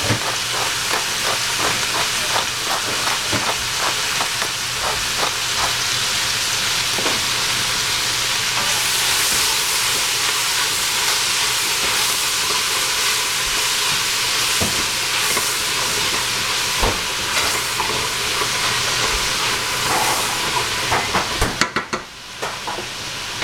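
Chopped cabbage sizzling in hot oil in a stainless steel pot while a wooden spatula stirs and scrapes through it, with frequent small clicks and knocks against the pot. The sizzle drops briefly near the end.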